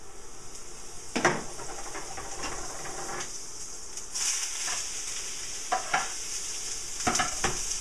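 Sliced bell peppers sizzling in butter in a frying pan, stirred with a utensil that knocks and scrapes against the pan a few times. The sizzle grows louder about four seconds in.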